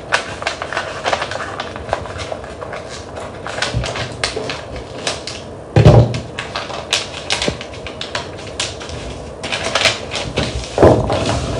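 Scissors snipping through a sheet of paper pattern in a run of crisp clicks, then a thump about six seconds in, followed by the paper rustling and crinkling as it is handled and smoothed flat.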